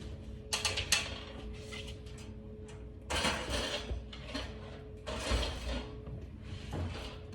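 A screw being worked by hand into a masonry wall: a few sharp clicks, then three rough scraping, grinding turns of about a second each, over a faint steady hum.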